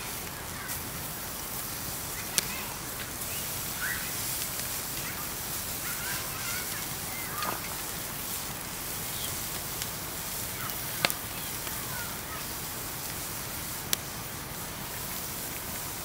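Wood campfire crackling under a grill grate, with a steady hiss and a few sharp pops, the loudest about two seconds in and twice more later. Faint short bird chirps come and go behind it.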